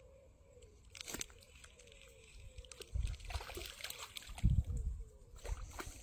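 A small hooked fish splashing at the surface near the bank while it is reeled in on a spinning reel, the splashing coming in bursts. A few loud low thumps are heard, the loudest about four and a half seconds in.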